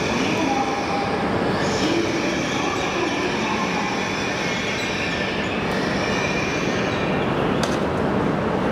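E926 East-i Shinkansen inspection train pulling out and accelerating away, its GTO-VVVF inverter traction motors whining in several tones that shift in pitch over the running noise of the train. A short sharp click sounds near the end.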